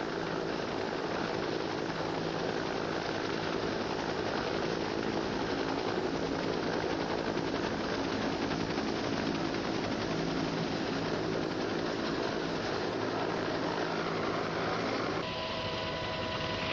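Helicopter in flight, its rotor and engine running steadily. Near the end the sound changes, with a few steady higher tones coming in.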